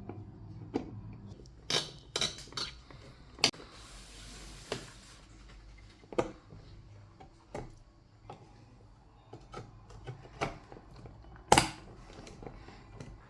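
Scattered clicks, taps and small clatters of computer parts and tools being handled during assembly, with a brief rustle about four seconds in and the loudest knock near the end.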